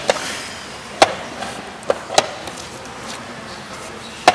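Wooden chess pieces set down sharply on a wooden board and chess clock buttons pressed during a blitz time scramble: about five quick, separate clicks and knocks, the loudest about a second in and at the end.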